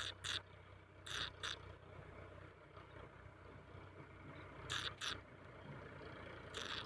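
A bird giving short, harsh, raspy calls in quick pairs, four pairs spaced irregularly, over a faint low hum.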